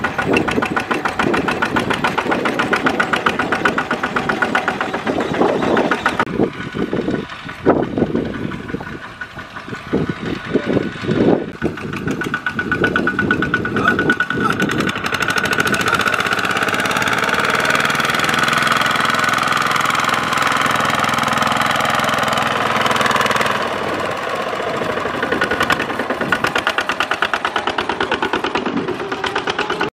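Single-cylinder diesel engine of a two-wheel walking tractor chugging under load while it pulls a trailer of rice sacks through mud. Its beat turns uneven with dips for a few seconds, then settles into a steadier run whose pitch rises and falls.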